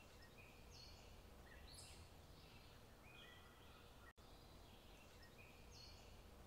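Near silence, with a faint chirping ambience that repeats the same pattern about every four seconds, like a short loop.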